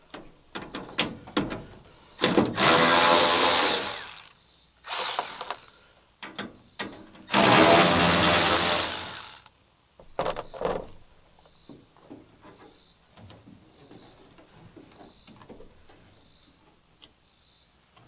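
A Milwaukee M12 cordless ratchet spinning out the tail-light housing bolts. It runs in two long bursts of about two seconds each, with a shorter run between them. Then come a few sharp clicks and faint, regular ticking as the tool and socket are handled.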